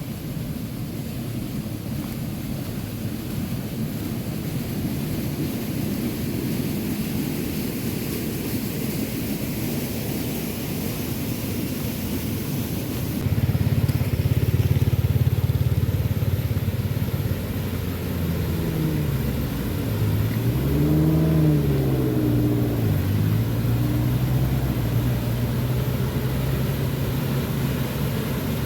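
Steady low rushing noise. About halfway through, a motor vehicle engine comes in running steadily, its pitch rising and falling a few seconds later as it revs, then settling back to a steady hum.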